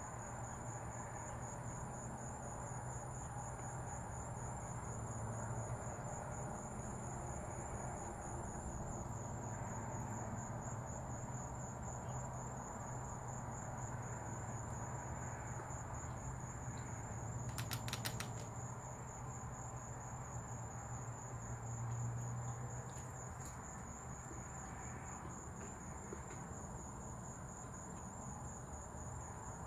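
A steady chorus of insects trilling, a high, finely pulsing tone, over a low steady hum. A second, higher insect trill drops out about nine seconds in, and a quick run of clicks comes about eighteen seconds in.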